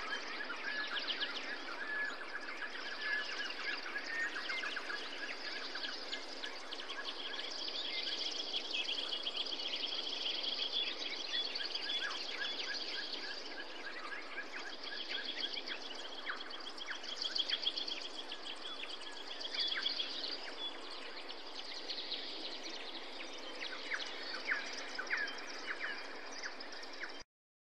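Outdoor nature ambience: a steady hiss with small birds chirping and trilling throughout. It cuts off abruptly to silence just before the end.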